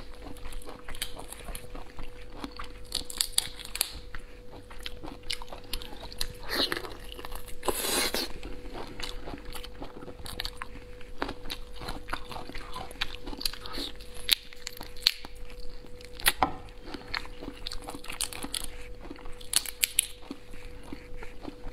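Close-miked eating of shellfish by hand: shells cracking and being pulled apart, with wet chewing, sucking and crunching, many small crackles and clicks throughout. A faint steady hum runs underneath.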